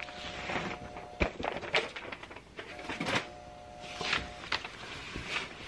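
Fabric rustling and handling noise as a sweatshirt is shifted on a heat press platen and a pressing pillow is pulled out from inside it, with a few sharp knocks and clicks. A faint steady tone sounds twice behind it.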